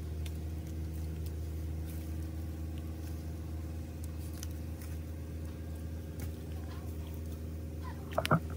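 A steady low hum with faint scattered clicks, and a few louder sharp clicks near the end.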